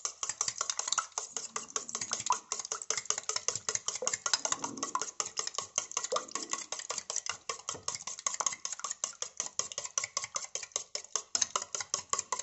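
Metal spoon whisking four raw eggs in a stainless steel bowl: rapid, steady clinking of the spoon against the bowl with the slosh of the beaten egg.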